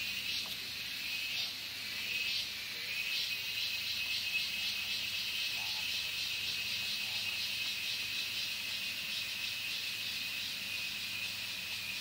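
Forest insect chorus: a high, shrill, rapidly pulsing trill. It is uneven for the first few seconds, then settles into a steady pulsing.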